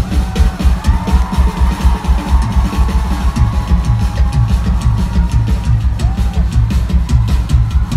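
Rock band playing live, dominated by a drum kit pounded in a rapid, even rhythm with heavy bass drum under the sustained band sound.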